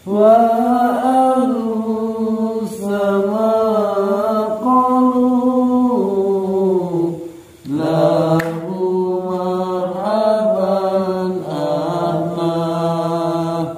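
A voice chanting in long, drawn-out, wavering notes, in two phrases with a brief break for breath about halfway through.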